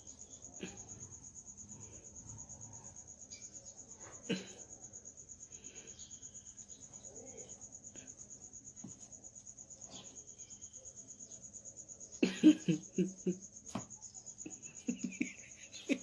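Steady high-pitched insect chirring, likely crickets, with a few faint clicks. About twelve seconds in, a short, loud run of rapid pulses.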